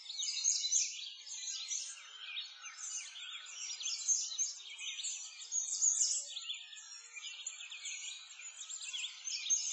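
A chorus of many small birds chirping and singing at once: quick, high chirps and short falling whistles overlapping densely.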